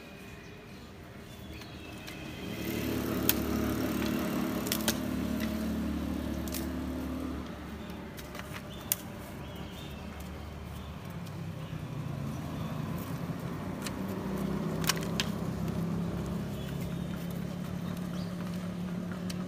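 Motor vehicle engines running past on the street, one swelling about two seconds in and fading around seven seconds, another coming up from about eleven seconds. A few sharp cracks of thin firewood sticks being snapped for the fire stand out over them.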